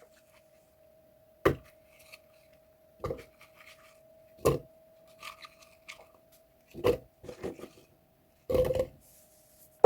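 Apple pieces being dropped into a speed blender jar, landing as five separate knocks a second or two apart, the last one longer.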